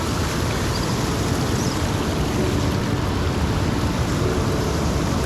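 River water rushing steadily over rocks, a constant even rush with no change in level.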